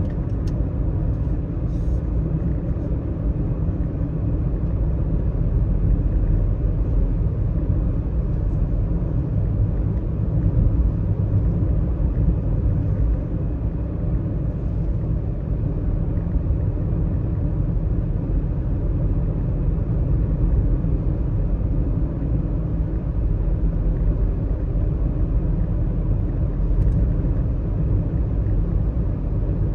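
Car driving along with a steady low rumble of road and engine noise.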